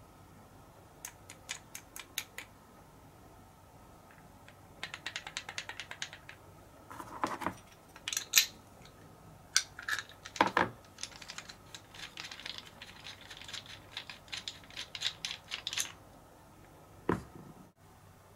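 Hand-tool handling on a drill-press feed handle: runs of quick, small metallic clicks as an open-end wrench works the nut on the handle's red grip, with a few louder knocks in between.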